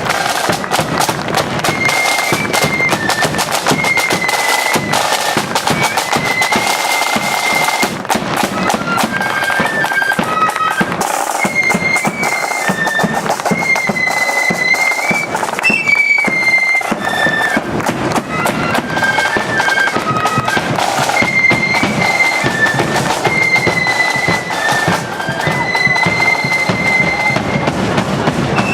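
Marching flute band playing a tune in unison, its high melody of held and stepping notes carried over a steady, dense beat of drums.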